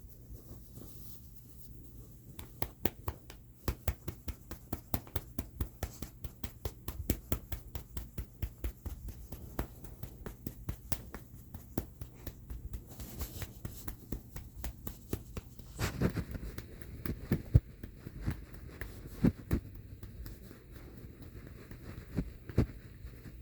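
A hand patting a cat's fluffy rump in quick, even pats, about four a second. Later come slower, louder single slaps.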